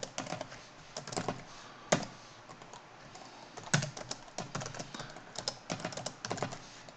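Typing on a computer keyboard: a quick, irregular run of key clicks as commands are entered, with a few harder single strokes among them.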